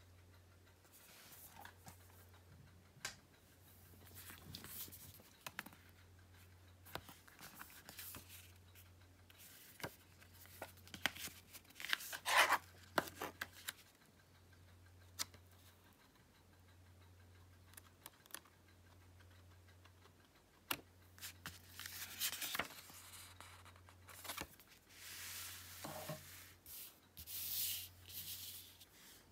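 Blu-ray cases and packaging being handled: faint rustling, rubbing and scraping with scattered sharp clicks, the busiest handling about halfway through and again near the end.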